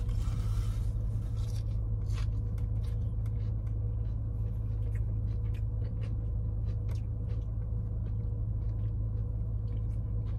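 Steady low hum of a car's engine idling, heard inside the cabin, with scattered soft clicks of chewing and handling a foam takeout box.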